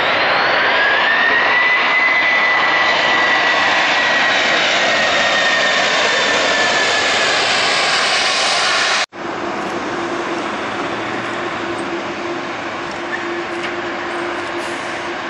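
Airbus A330's jet engines at takeoff power: a loud roar with a fan whine that rises and then holds steady, cutting off abruptly about nine seconds in. After that, a quieter Boeing 787 Dreamliner's engines as it taxis, with a steady low hum.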